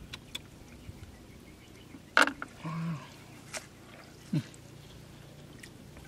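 A few short vocal sounds: a sharp burst about two seconds in, a brief hum just after, and a quick falling grunt a little past four seconds. Small clicks and splashes of hands working among rocks in shallow water sit underneath.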